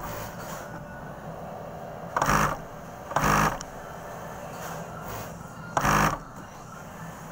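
Industrial sewing machine stitching in three short bursts, each about half a second long, sewing a collar onto a garment panel.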